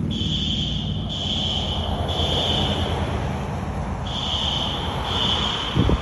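Building fire alarm horns (System Sensor SpectrAlert Advance) sounding the temporal-3 evacuation pattern: three horn blasts in a row, a pause of about a second, then three more. A brief low bump near the end.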